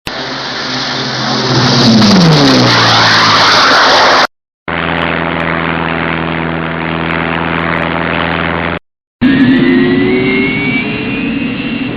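Three short aircraft sound effects in a row, split by brief silent gaps: first an aircraft engine whose tone falls in pitch partway through, then a steady engine drone, then an engine with a whine rising steadily in pitch.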